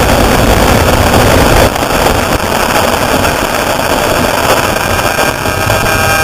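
Off-road race vehicle engine running loud under a heavy rushing noise, dipping slightly in level about two seconds in; a few steady tones come in near the end.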